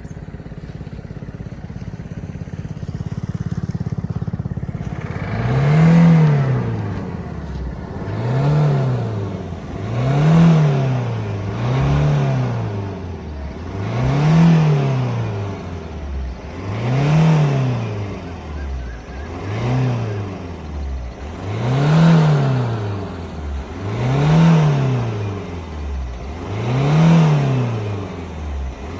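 Ford Figo's turbo-diesel engine idling, then from about five seconds in blipped over and over: about ten rev-ups, each rising and falling back to idle, one every two to three seconds. The revving checks the engine after a carbon-cleaning treatment that the mechanic says has raised its compression.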